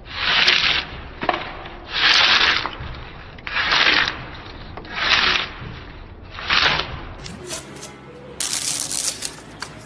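Drawknife pulled along the edge of a wooden slab, rasping off bark in five strokes about a second and a half apart. In the last second or so, a steadier hiss takes over.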